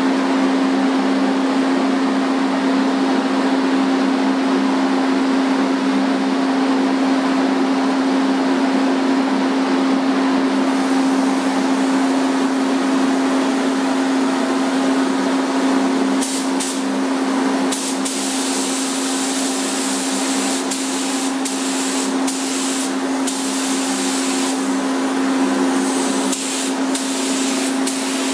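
Paint spray gun hissing over a steady mechanical hum. The hiss rises about ten seconds in, then comes in repeated short bursts as the trigger is pulled and released.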